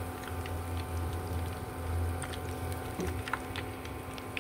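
Battered banana pieces deep-frying in hot oil in a pan, a steady sizzle with scattered small pops and crackles, during the second fry.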